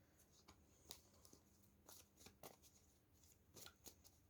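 Faint shuffling of tarot cards: soft, scattered flicks and taps of the cards being handled.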